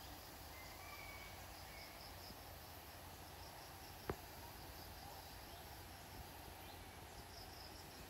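Faint tropical forest ambience over a steady low hiss: an insect chirping in rapid high pulses at the start and again near the end, and a few short bird whistles in the first couple of seconds. A single sharp click about four seconds in.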